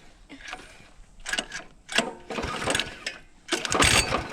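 Mini bike's small single-cylinder engine being cranked with its recoil pull-starter, a few separate pulls, the last one the loudest, without the engine catching.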